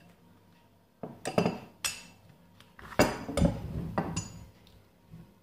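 Set of forged chrome-vanadium steel open-end spanners in a plastic rack, clinking and knocking against one another as they are handled and set down on a wooden table. A string of sharp metallic clinks comes in two clusters, about a second in and around three seconds in, the loudest near the three-second mark.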